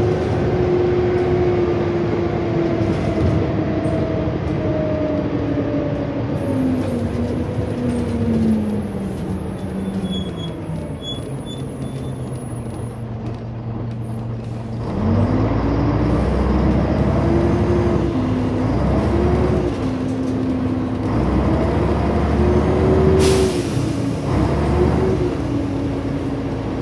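Volvo Olympian double-decker bus from the upper deck, its six-cylinder diesel engine slowly winding down as the bus slows, then pulling away louder with the engine note climbing and dropping several times through the gear changes. A short hiss of air comes about three-quarters of the way through.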